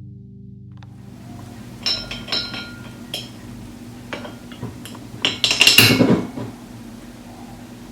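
Cutlery and dishes clinking: a few separate ringing clinks about two to three seconds in, then a louder clatter of clinks around six seconds in.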